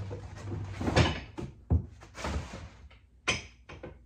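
Axes being handled in a plywood crate: a few sharp wooden knocks, the loudest about a second in, with a brief rustle of packing in between.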